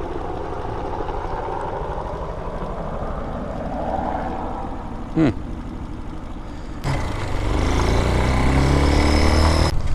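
Air-cooled single-cylinder 250cc dirt bike engine running at low speed, then revving up as the bike accelerates about seven seconds in, with wind noise on the microphone that stops abruptly near the end. A brief sharp sound about halfway through.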